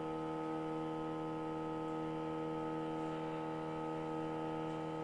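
Open-loop stepper motor driving the CNC mill's Y axis slowly at 10 inches per minute, giving a steady hum made of many overtones. It is the audible vibration that is common with stepper-driven axes and strong in this 10 to 20 inch per minute range.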